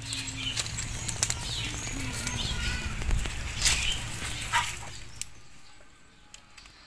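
Wood fire crackling under fish roasting on sticks, with sharp pops, while birds call in short sweeping notes. The whole sound drops away about five seconds in.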